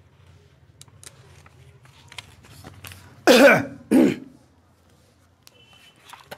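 A man clearing his throat with two short coughs, a little over three seconds in.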